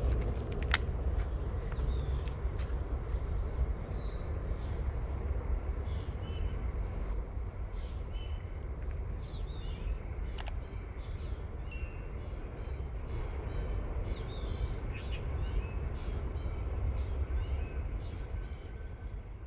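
Outdoor ambience: a steady high-pitched insect drone with scattered short bird chirps over a constant low rumble, and a couple of sharp clicks.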